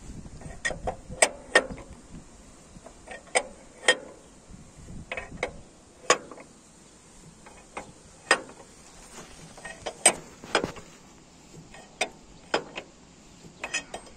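Short, sharp metal-on-metal knocks and clanks at irregular intervals, about one or two a second with short pauses. They come from tool work freeing a stuck upper vertical pivot pin from the rear half-frame joint of a T-150K tractor.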